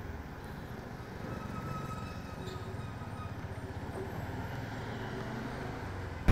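Fairly quiet, steady low engine rumble of a motor vehicle, with a faint thin high tone for a couple of seconds near the start.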